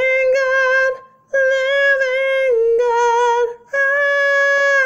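A woman's voice singing alone, without accompaniment, in long held notes: three sustained phrases, with short breaks for breath about a second in and about three and a half seconds in.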